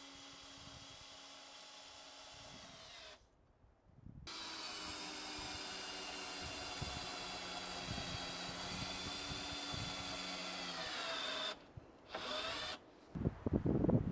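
Cordless drill driving screws into wooden roof slabs: a steady motor whine that stops about three seconds in, starts again louder and runs for about seven seconds, then winds down in pitch. A short final burst follows, then wind rumbles on the microphone near the end.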